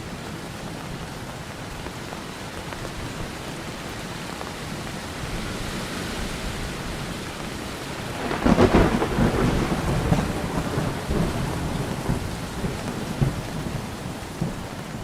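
Monsoon rain falling steadily, with a thunderclap about halfway through that rumbles on for several seconds.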